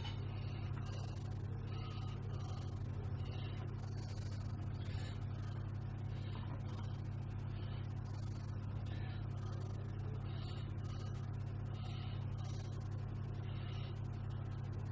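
A steady low electrical hum, with faint soft irregular sounds of tomato slices being laid onto the dish.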